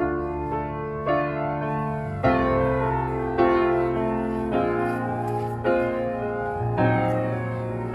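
Background music of slow, sustained piano chords, with a new chord struck about once a second.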